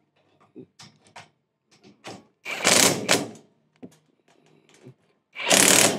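A 10 mm spanner ratcheting on bolts: two bursts of rapid clicking about a second each, one a little past two seconds in and one near the end. Small metallic taps come in between as the tool is fitted onto the bolt heads.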